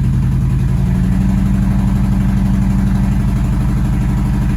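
2011 Nissan Altima engine running steadily in drive against a slight load, its note lifting a little about a second in. It is misfiring from a faulty ignition coil.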